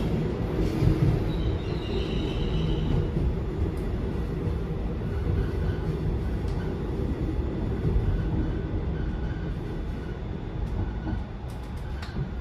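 Seoul Subway Line 4 train heard from inside the car: the steady low rumble of wheels and running gear as it runs along, with faint high wheel squeals in the first few seconds. The rumble grows quieter over the last few seconds as the train slows for Sanggye station.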